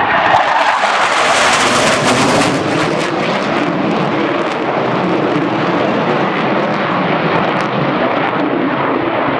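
Jet noise from a delta-wing jet fighter with canards, a Saab JAS 39 Gripen, flying past the crowd. The sound is loudest and hissiest about one to two seconds in, then carries on as a steady roar.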